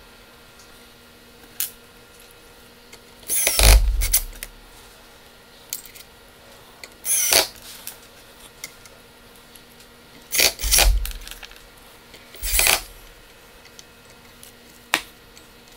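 DeWalt cordless drill/driver running in four short bursts, fastening the Z-axis motor bracket to the router base, with small clicks of metal hardware being handled between bursts.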